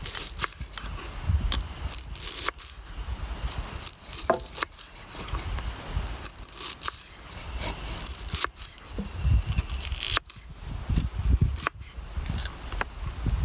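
Irregular scraping, tearing and crackling handling sounds, made up of sharp clicks and crunches at uneven intervals.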